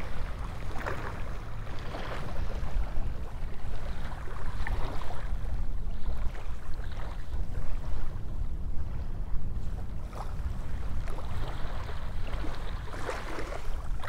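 Wind buffeting the microphone: a steady low rumble that rises and falls, with a few faint short ticks.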